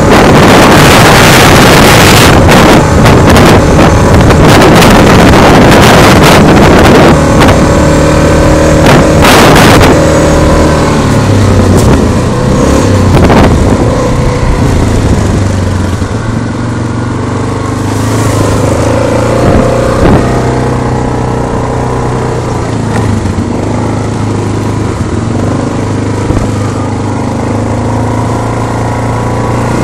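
Yamaha Grizzly 660 ATV's single-cylinder engine running while riding a trail, with heavy wind noise on the phone's microphone for the first ten seconds or so. After that the engine's steady note comes through clearly, a little quieter from about sixteen seconds in.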